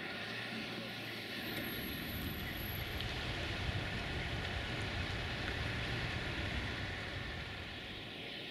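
Sulzer diesel engine of a CFR 060-DA (LDE2100) diesel-electric locomotive running during shunting, a steady low rumble that swells a little in the middle as the locomotive draws nearer.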